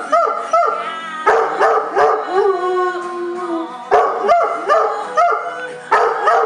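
Giant Schnoodle (giant schnauzer–poodle cross) howling along to recorded music in short yowls that each rise and fall in pitch, coming in quick runs of several notes with pauses between.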